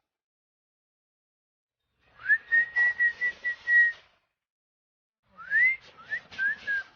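Cockatiel whistling: two phrases of clear whistled notes, each opening with a rising note and running into a string of short repeated notes, the second phrase starting about five seconds in.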